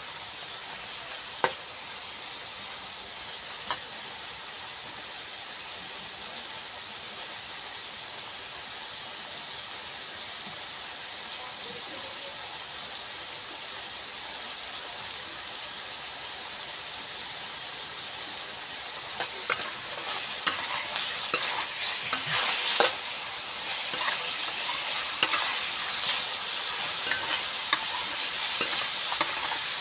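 Chicken pieces sizzling in a wok, a steady high hiss. A metal spatula clicks against the pan twice in the first few seconds. From about two-thirds of the way through, it scrapes and clacks repeatedly against the wok as the chicken is stirred.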